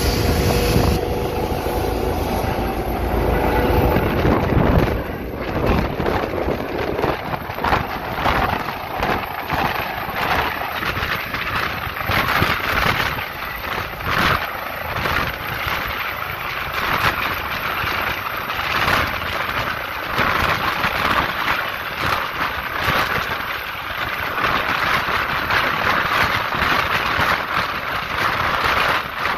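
Eurocopter EC135 air-ambulance helicopter taking off close by: a steady turbine whine at first, then, as it lifts off a few seconds in, rapid rotor chopping and rotor downwash buffeting the microphone. This continues as it climbs overhead.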